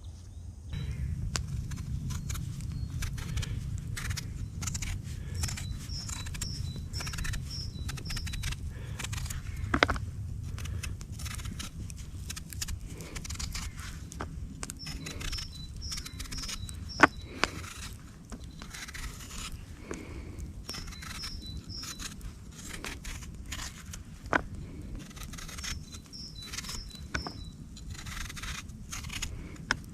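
Irregular clicks and scraping sounds with a few sharper knocks, under a songbird repeating a short run of four or five high notes every several seconds. A low rumble runs through the first dozen seconds and then fades.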